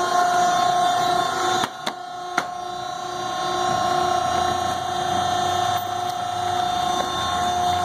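Horizontal baler's hydraulic power unit running with a steady whine while the ram pushes the finished bale out. The sound drops briefly about a second and a half in, with two sharp clicks, then comes back.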